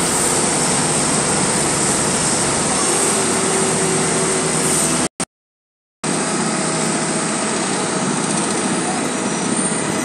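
Heavy diesel engines of an Atlas Copco asphalt paver and the tipper truck feeding it asphalt, running steadily as a loud, dense drone. The sound cuts out completely for about a second halfway through, then the same drone resumes.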